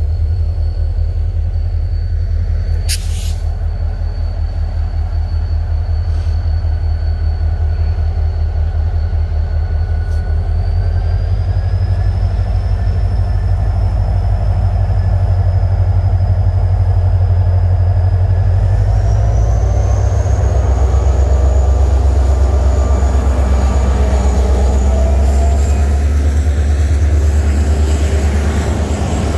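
Short passenger train running at the station: a heavy low rumble with a thin high whine that steps up in pitch twice, growing louder after about fifteen seconds.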